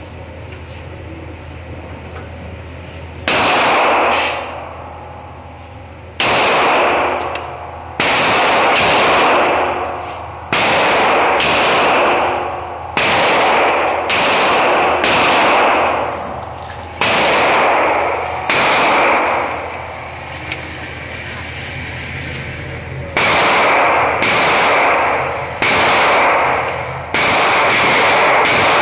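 Beretta 92A1 9mm pistol fired shot by shot in an indoor range: over a dozen sharp, loud shots spaced one to three seconds apart, each with a long echoing tail, starting about three seconds in with a pause of a few seconds in the middle. A steady low hum sits underneath.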